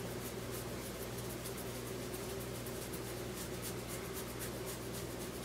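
Fingernails scratching through a dog's fur in quick repeated strokes, a faint scratchy rasp that grows plainer in the second half, over a steady low hum.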